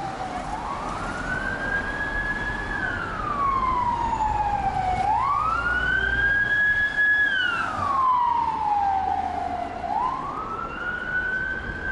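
Emergency vehicle siren in a slow wail. Each cycle climbs quickly, holds at the top, then slides slowly down, about three times roughly five seconds apart, over the steady hum of street traffic.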